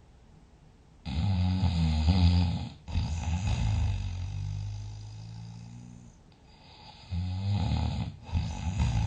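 A sleeping person snoring loudly through two breaths. About a second in comes a rough, rattling snore, then a long, steadier drone that slowly fades. Near the end a second rattling snore begins.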